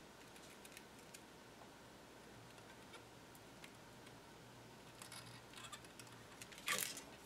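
Faint scattered clicks and light handling noises from hand tools and wires during bench wiring work, with one louder short scrape near the end.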